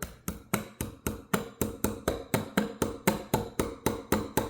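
Rapid, evenly spaced light taps from the back of a hammer, about four a second, driving the float hinge pin into a Briggs & Stratton lawn-mower carburetor.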